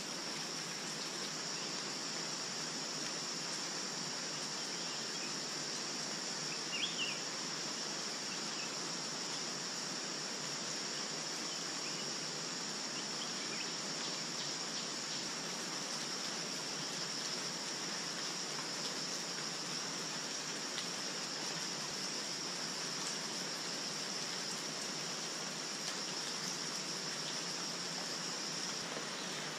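Forest ambience: a steady high-pitched insect chorus over a constant hiss like running water, the insect drone stopping near the end. A short bird chirp about seven seconds in.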